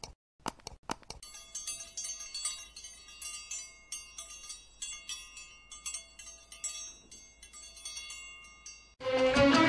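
A few quick clicks, then a bell-chime sound effect rings in many quick high notes for several seconds, as used with a subscribe-button animation. About nine seconds in, music with a bowed fiddle begins.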